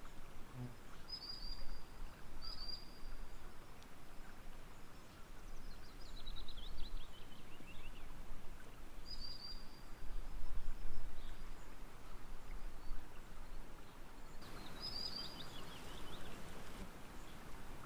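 Songbirds calling: short high whistled notes repeated a few times, and twice a fast trill that slides down in pitch. Under them runs a low, uneven rumble that swells for a second or two about ten seconds in.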